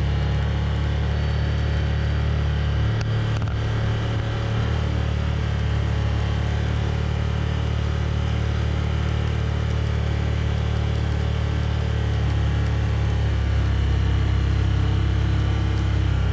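Side-by-side utility vehicle's engine running while driving over rough ground, a steady low hum.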